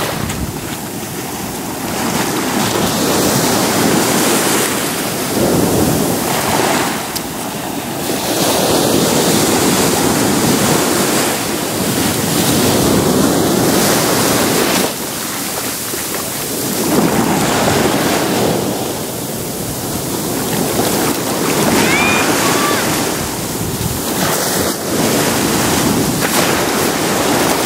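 Small surf breaking and washing up a sandy beach, swelling and fading in surges every few seconds.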